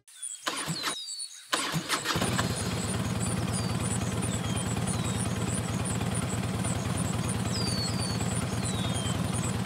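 Tractor engine cranked and started: it catches about two seconds in and then runs steadily with a fast, even beat. Birds chirp over it.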